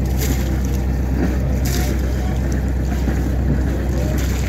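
A boat engine idling with a steady low hum, with a few brief gusts of wind on the microphone.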